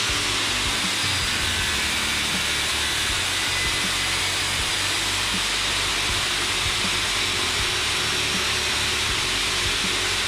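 DeWalt DWE4597 7-inch corded angle grinder with a flap disc grinding a steel test bar under steady pressure: a continuous, even grinding noise with the motor held under load, strongest in the upper range.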